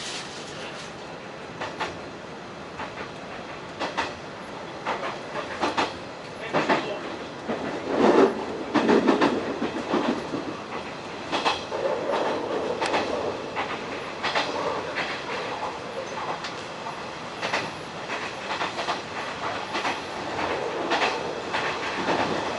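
Hanshin 1000 series electric train running, heard from inside the leading car: steady running noise with the wheels clicking over rail joints at irregular intervals, and a louder rumble about eight to ten seconds in.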